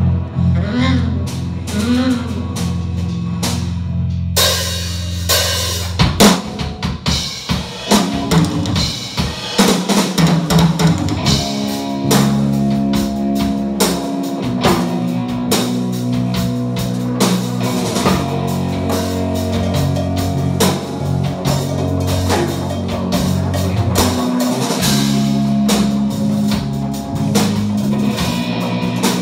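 Live band playing with a drum kit to the fore: held low notes at first, then the drums come in about four seconds in with a dense run of hits, and from about ten seconds the band settles into a steady groove.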